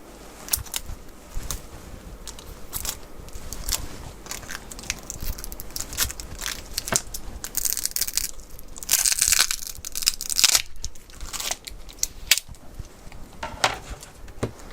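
Glued-in battery of a Samsung Galaxy S23 FE being pried and peeled out of the phone's frame with a plastic opening tool: irregular clicks and crackles of the adhesive tearing, with a longer rasping stretch about eight to ten seconds in.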